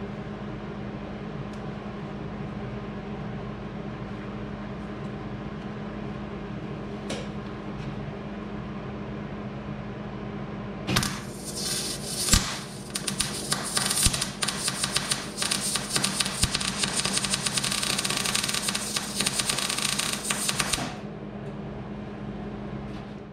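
A steady hum, then from about eleven seconds in electric arc welding on 1-inch square steel tubing brackets: about ten seconds of crackling sizzle with a few short breaks. It stops a couple of seconds before the end.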